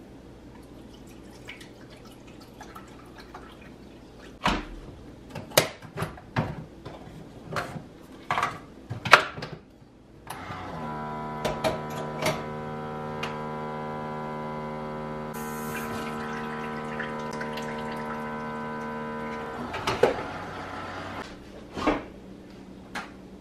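Keurig single-serve coffee maker brewing: its pump hums steadily for about nine seconds, starting about ten seconds in, with a hiss joining halfway through, then stops. Before it come several sharp clicks and knocks of handling at the counter.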